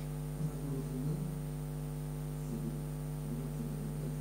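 Steady electrical mains hum, a buzzy stack of constant tones with nothing else clearly above it.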